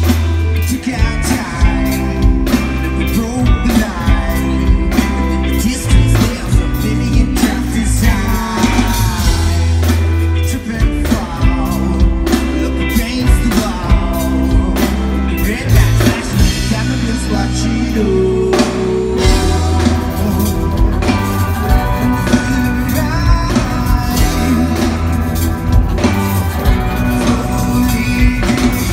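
Live rock band playing at full volume through a festival PA, heard from the crowd: electric guitars, bass, drum kit and keyboards with singing. The bass drops out briefly a little past halfway, then the full band comes back in.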